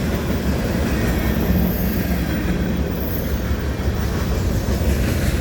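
Freight cars of a long manifest train rolling past, a steady rumble of steel wheels on rail, with faint high squeals about two and three seconds in.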